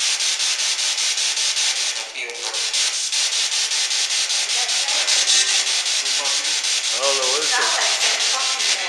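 PSB7 spirit box sweeping through radio stations: a loud, steady hiss of static chopped at a quick, even rate, with brief garbled fragments of radio voices, the clearest about seven seconds in.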